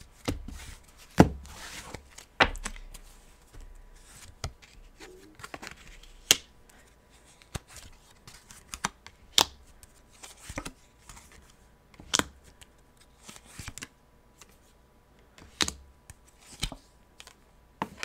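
Tarot cards being drawn and laid down on a cloth-covered table: scattered, irregular clicks and taps of card on card and card on cloth, a few of them sharper snaps.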